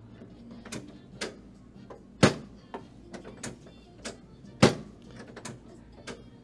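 Sharp knocks and clicks from a chiropractic adjustment on a treatment table: two loud thuds about two and a half seconds apart, with lighter clicks in between.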